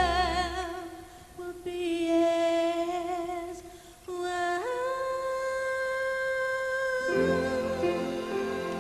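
A woman singing long held notes with vibrato, almost unaccompanied, stepping up to a higher sustained note about halfway through. The band's low accompaniment comes back in near the end.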